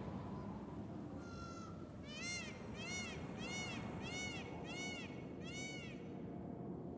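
An animal calling: one short call, then a run of six rising-and-falling calls about 0.6 s apart, ending near the end.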